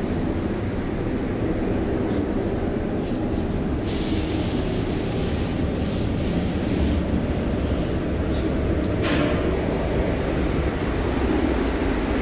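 A steady low rumble of ship machinery carried through the steel hull. A few brief scuffs and knocks come from boots on the steel spiral stairs going down into the cargo hold.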